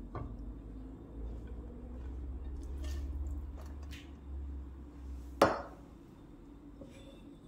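Chopped raw lamb being tipped from a dish into an empty nonstick pot, with low handling noise and a few faint clicks, then one sharp knock about five and a half seconds in, the loudest sound.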